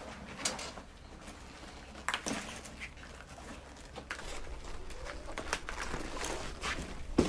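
Rustling and small clicks of a handbag being rummaged through, sparse at first and busier in the second half, with one sharper knock near the end.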